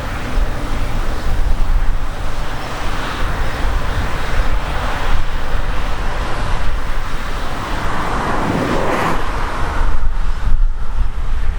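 Harvest machinery running in the field with a steady engine and machine noise, swelling briefly about eight seconds in, with wind rumbling on the microphone.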